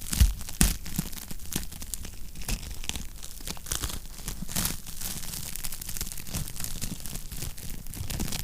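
Wood fire crackling in a fireplace: irregular snaps and pops over a low rumble, with two louder pops within the first second.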